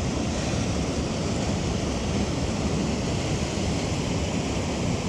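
Steady, even rushing noise outdoors, with no distinct events: wind on the microphone, flowing water, or both.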